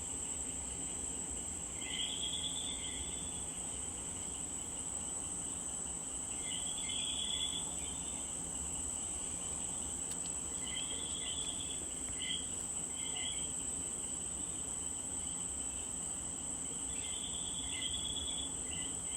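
Coquí frogs calling their two-note "co-quí", in short clusters every few seconds, over a steady high-pitched insect drone.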